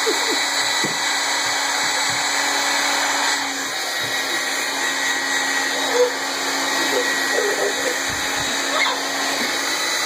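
Hand-held hair dryer running steadily, a constant rush of blowing air with a steady motor hum. A toddler's short squeals come over it around six to eight seconds in.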